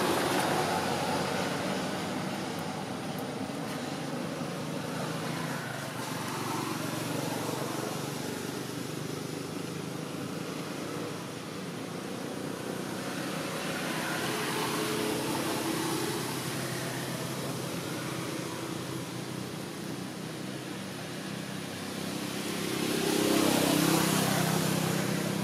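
Background road traffic: a steady hum of passing vehicles that swells and fades several times, loudest near the end.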